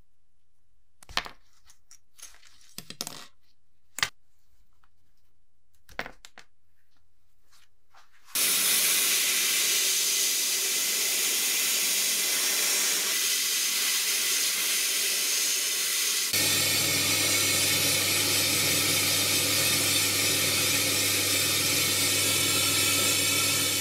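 A few light metal clicks and knocks as a small rusty metal part is handled. About eight seconds in, a sandblaster starts with a loud steady hiss of abrasive and air. About halfway through, the hiss changes and a steady low hum joins it as a powder-coating spray gun coats the part.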